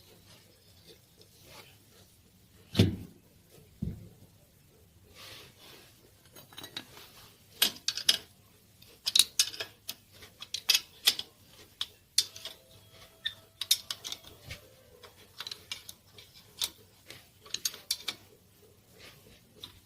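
Metal tools and parts clinking and tapping intermittently, with two heavier knocks about three and four seconds in.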